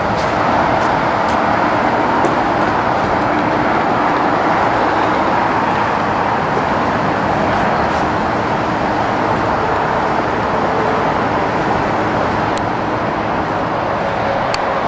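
Steady, even rushing noise that holds the same level throughout, with a few faint ticks.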